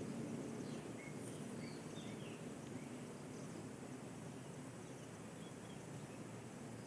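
Steady outdoor background noise with a few faint, short chirps from small animals, birds or insects, in the first three seconds.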